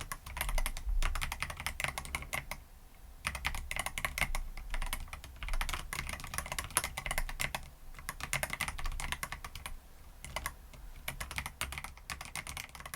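Typing on a transparent-cased CoolKiller CK75 mechanical keyboard with bare fingertips, no nails on the keycaps: runs of rapid keystroke clacks broken by a couple of short pauses.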